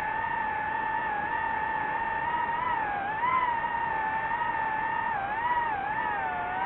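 FPV drone's motors and propellers whining steadily, the pitch dipping and rising several times.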